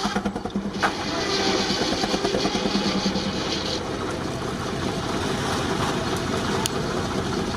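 Steam-powered sawmill running, driven by a 19-65 Uniflow Baker steam traction engine. A sharp click about a second in, then a high hiss for about three seconds over steady machinery noise.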